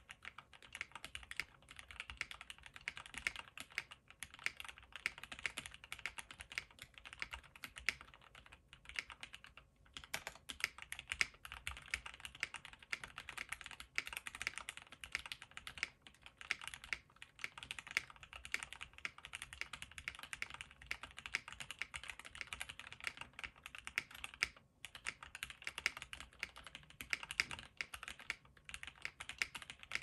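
Continuous typing on a Tofu65 mechanical keyboard with lubed and filmed Gateron Ink Black V2 linear switches, a polycarbonate plate, O-ring mount and case and plate foam: a dense stream of keystroke clacks, with a couple of brief pauses, about ten seconds in and again near twenty-five seconds.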